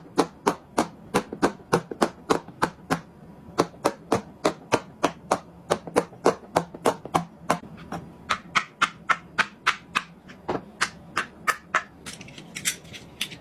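Silicone pop-it bubbles being pressed one after another as fast as possible, a steady string of short, sharp pops about four a second.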